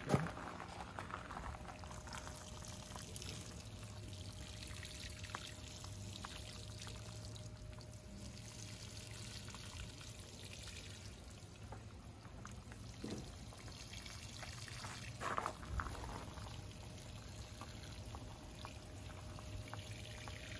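Water sprinkling from a plastic watering can's rose spout onto soil and seedlings in a faint, steady patter.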